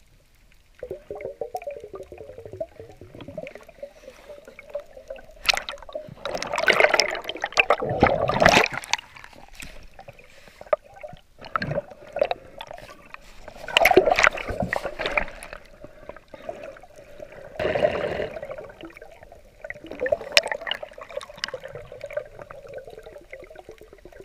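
Underwater bubbling and gurgling picked up by a submerged camera, coming in loud bursts every few seconds with quieter churning between them.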